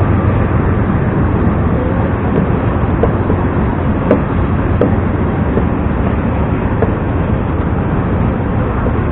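Wind buffeting the camera's microphone: a loud, steady low rumble with a few faint ticks around the middle.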